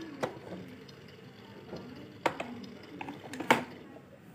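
Hard plastic knocks and clicks from a LeapFrog Water & Count Veggie Garden toy's plastic watering can being handled and set back into its holder. There are several separate knocks, the loudest near the end.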